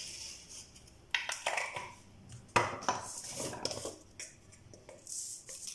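Kitchen utensils and dishes clattering as they are handled, a run of clinks and knocks with one sharp clack about two and a half seconds in.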